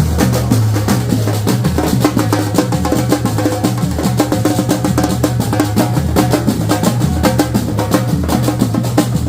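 Lively percussion music: fast, dense drumming in a steady rhythm over a deep, sustained bass.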